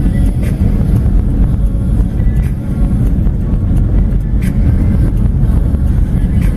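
A car driving on a wet road in a tropical storm, heard from inside: a steady low rumble of road and wind noise, with a few short clicks.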